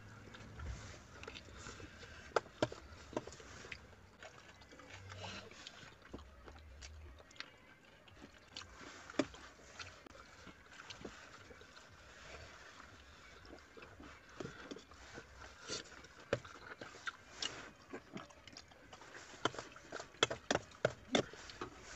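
Quiet eating sounds: soft chewing and smacking with scattered small clicks of hands on food and containers, coming more thickly near the end.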